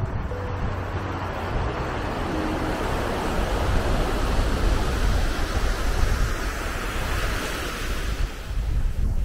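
Small waves washing in and drawing back over a sandy beach, a steady surf hiss that swells in the middle, with wind rumbling on the microphone.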